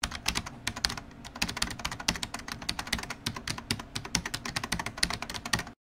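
Computer-keyboard typing sound effect: a rapid, irregular run of key clicks that stops abruptly near the end.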